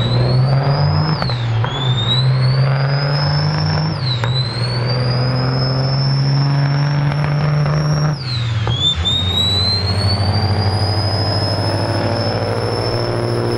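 Diesel semi truck accelerating hard through the gears. A high turbo whistle climbs with engine speed and drops back sharply at each of three gear shifts, about a second and a half, four and eight and a half seconds in.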